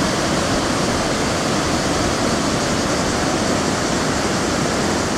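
River water rushing steadily over a low rocky weir and small rapids, a loud even wash of noise.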